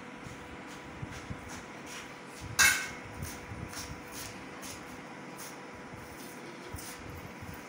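Light household clatter: one sharp knock with a short ring about two and a half seconds in, and scattered faint clicks, over a steady hiss with a faint hum.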